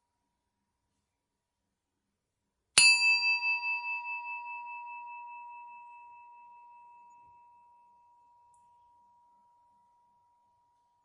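A metal bell struck once, nearly three seconds in: a bright strike followed by a high, clear ringing tone that pulses quickly and fades away over about six seconds.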